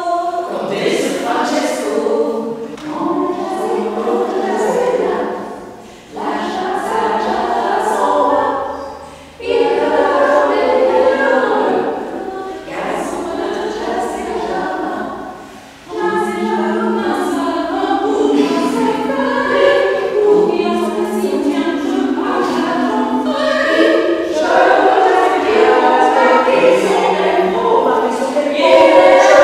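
A small group of women singing unaccompanied in harmony, in phrases broken by brief pauses.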